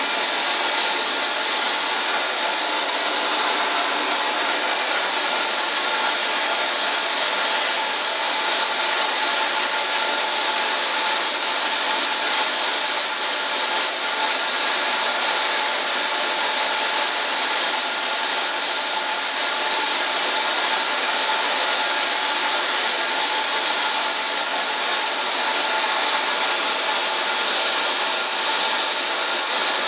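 JetCat P120 model jet turbine running steadily on a test stand at a constant speed: a loud, even rush of air with a high-pitched whine held on top.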